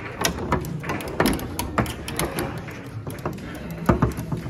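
Foosball play: the ball clacking off the players and the rods knocking, a quick irregular series of sharp clicks and knocks.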